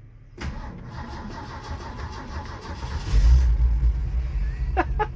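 A 1967 Ford F250's inline-six engine being cranked on the starter with the choke pulled, catching about three seconds in and running, much louder and deeper once it fires.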